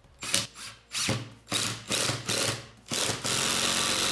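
Ryobi 18-volt P236A impact driver driving a 3-inch drywall screw into a pre-tapped hole. It runs in several short trigger bursts, then holds a longer steady run from about three seconds in.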